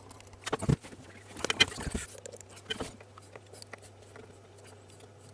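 Handling knocks and scrapes as a car subwoofer's metal-framed amplifier module is turned over and set on a desk, with several sharp knocks in the first two seconds, then a few faint clicks over a low steady hum.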